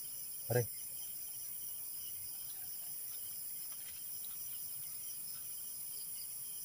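Steady high-pitched chorus of night insects, such as crickets, running on without pause.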